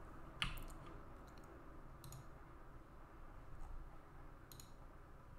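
A few sharp computer mouse clicks, spaced a second or two apart, the loudest about half a second in, over faint room noise.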